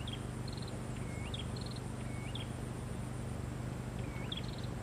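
A small bird calling over and over, about once a second: each call a short upward-sweeping whistle, often followed by a quick run of four or five high pips. A steady low hum runs underneath.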